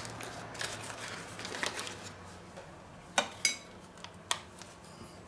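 Quiet kitchen handling sounds: soft rustling, then a few sharp metallic clicks about three and four seconds in, from a metal mesh sieve being picked up and handled while powdered sugar is dusted over a cake.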